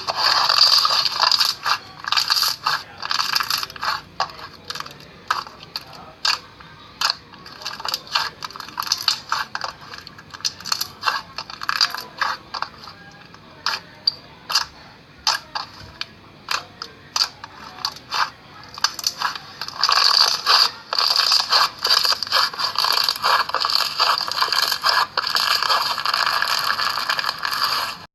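Slime being squeezed and poked, giving a stream of sharp little clicks and crackles. They are dense over the first few seconds and again through the last nine or so, and sparser in between.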